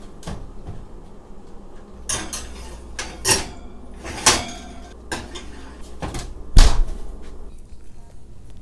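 A few separate sharp knocks and clacks about a second apart, like things being handled in a kitchen. The loudest, about six and a half seconds in, is a heavy thump.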